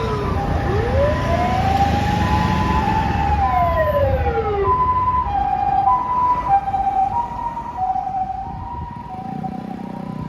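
Japanese doctor car's electronic siren sounding the two-tone hi-lo pattern, high and low notes alternating about every half second. During the first few seconds a second, wailing siren tone rises and falls over it, along with vehicle rumble. The sound gradually fades as the vehicle moves off.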